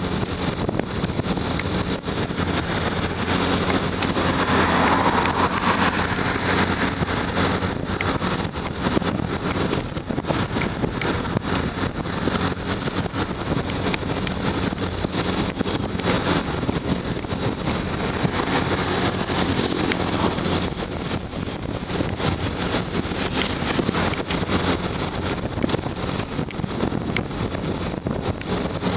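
Motorcycle engine running steadily at cruising speed, with wind rushing over the microphone throughout and a brief louder rush about five seconds in.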